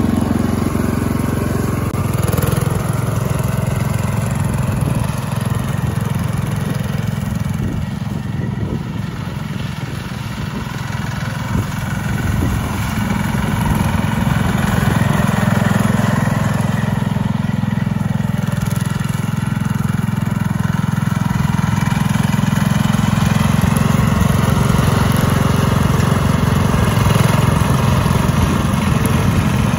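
John Deere 110 garden tractor's single-cylinder engine running steadily as the tractor is driven. It dips a little about ten seconds in, then grows louder.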